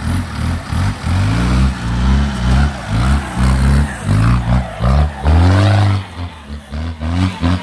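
Off-road jeep engine revving hard in repeated bursts while the jeep claws up a steep dirt slope, with one longer held rev about five seconds in and quick short throttle blips near the end.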